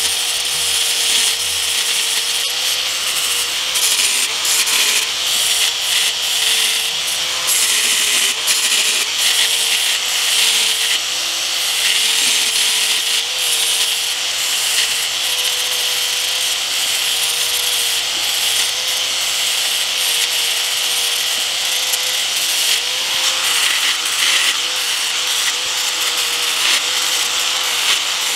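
A small high-speed power tool runs steadily, its motor pitch dipping slightly now and then as it bears down. It grinds away the corner of a clear plastic motorcycle windshield with a gritty hiss.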